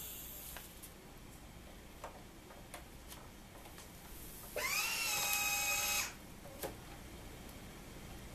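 Countertop vacuum sealer's small motor running briefly, about a second and a half of whine that rises in pitch as it spins up and then holds steady. Light clicks of the bag and machine being handled come before and after it.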